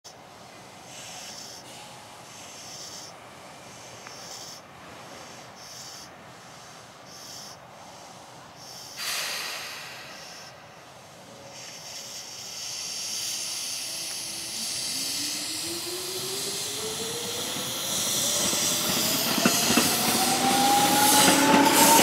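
Tobu 9000 series electric train standing with short hisses of air, a louder hiss about nine seconds in, then pulling away: its motor whine rises steadily in pitch and grows louder as the train accelerates.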